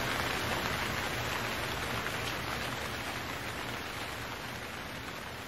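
Steady heavy rain falling, an even hiss that slowly fades away.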